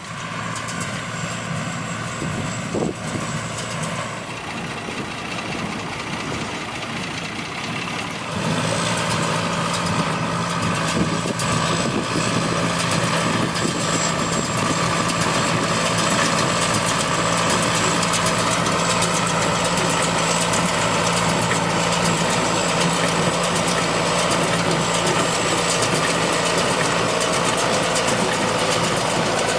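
Heavy farm machinery engine running steadily, growing clearly louder about eight seconds in and then holding.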